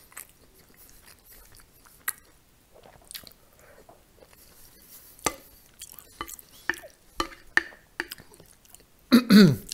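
Close-miked chewing of soft food (grated beet salad with garlic and mashed potato), with scattered sharp clicks from the mouth and a plastic spoon on the plate. A short, loud vocal sound comes near the end.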